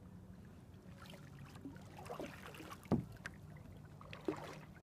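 Kayak paddle strokes splashing in lake water, with a sharp knock about three seconds in and a smaller one near the end, over a steady low hum.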